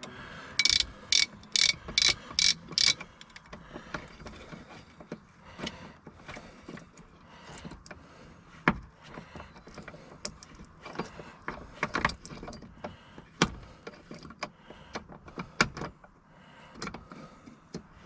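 Socket ratchet clicking in six quick strokes about a second in, working the nut loose on a car door's check strap (door stop). After that, scattered light clicks and taps of the nut and metal parts being handled.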